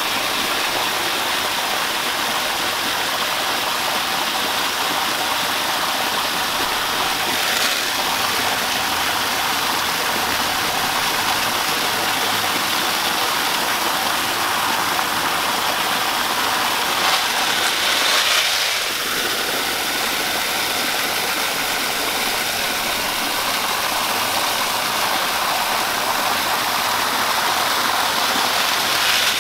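Water from a garden hose pouring steadily into a Cuben fiber pack liner as the sack fills, a constant rushing splash. It swells louder briefly about seven seconds in and again around seventeen to eighteen seconds in.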